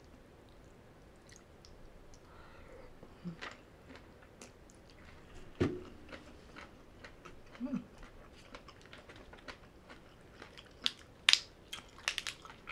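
A person chewing a mouthful of Thai papaya salad, close to the microphone: soft wet mouth sounds and small clicks, with a few louder crisp clicks in the second half.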